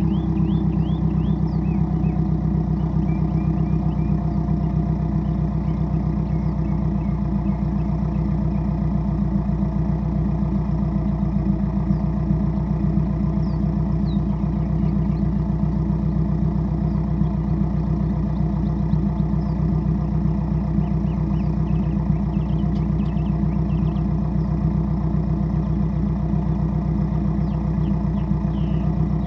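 Subaru WRX's turbocharged FA20DIT flat-four idling steadily through Tomei unequal-length headers, a Cobb catted J-pipe and a Carven cat-back exhaust.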